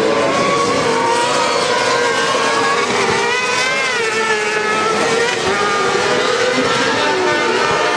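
Several kart cross buggies racing on a dirt track, their engines revving high at several different pitches at once. About three to four seconds in, one kart's engine note rises and falls as it accelerates past close by.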